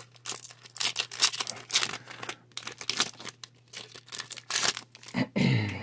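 Foil wrapper of a Pokémon TCG booster pack being torn open and peeled off the cards, crinkling in a run of irregular crackles.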